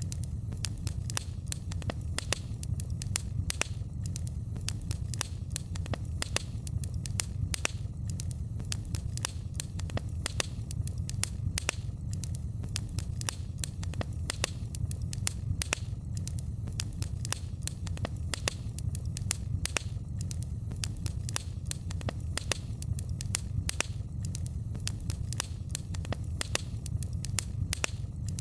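Fireplace fire crackling, with many irregular sharp pops and snaps over a steady low rumble.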